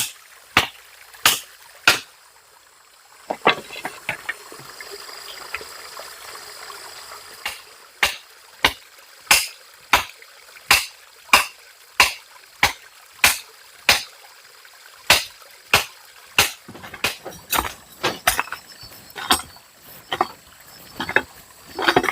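A hand tool striking over and over in a steady rhythm, about three blows every two seconds, with a short pause soon after the start. A faint trickle of water runs underneath for a few seconds after the pause.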